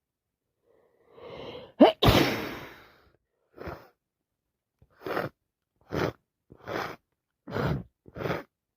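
A person with a common cold drawing in a breath and then sneezing once, hard, about two seconds in, followed by a string of short sniffs about one a second.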